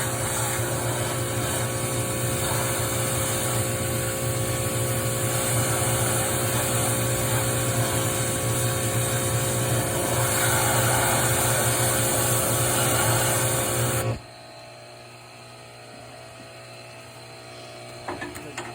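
Pressure washer running with its water jet spraying, a steady motor hum under a high hiss, then cutting off suddenly about fourteen seconds in.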